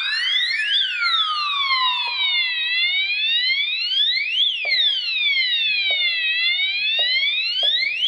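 Fire alarm sounding in alarm state after a smoke detector test: an electronic wailing siren tone, several pitches gliding up and down together over and over.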